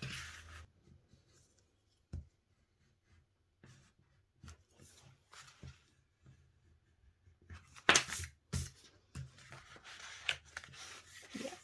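Fingernail rubbing along the folded creases of a paper card piece, with paper rustling and small taps of handling. The loudest rustle comes about eight seconds in.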